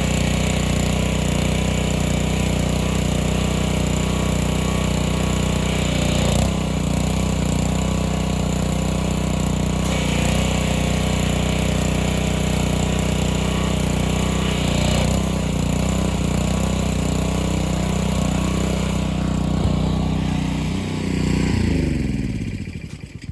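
Gasoline pressure washer's small engine running steadily under load, with the hiss of the spray changing now and then; near the end the engine is shut off and winds down to a stop.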